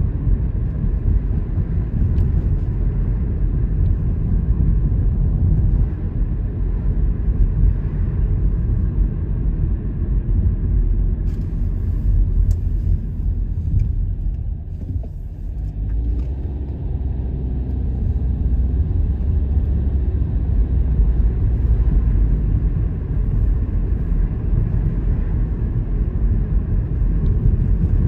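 Car interior road and engine noise while driving at low speed: a steady low rumble that eases about halfway through and then picks up again.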